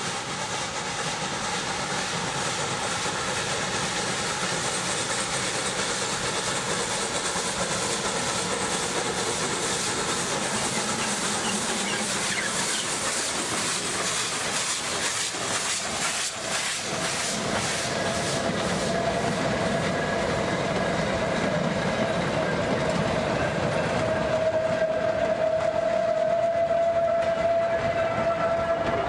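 Steam locomotive working up the grade close by, with steady hissing steam and rapid exhaust beats that crowd together as it passes. In the second half a long steady shrill tone joins in, loudest near the end.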